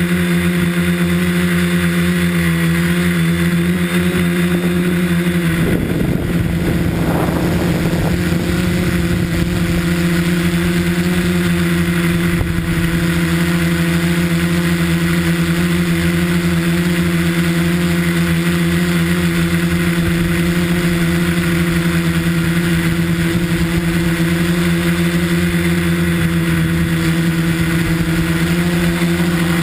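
Tricopter's electric motors and propellers, heard on board, holding a steady hum. About six seconds in, a rougher, rushing stretch with brief changes in pitch lasts a couple of seconds.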